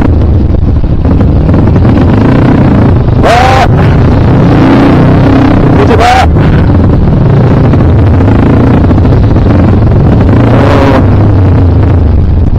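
Kawasaki KLX dirt bike's single-cylinder engine running hard and steadily loud while riding an enduro course.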